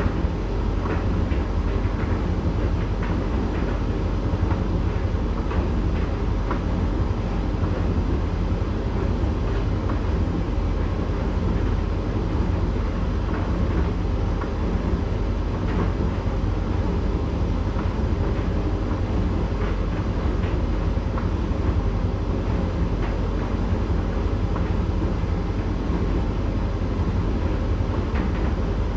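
Candy GrandO 9 kg tumble dryer running in its drying phase, the drum turning a load of towels: a steady low rumble with faint scattered ticks.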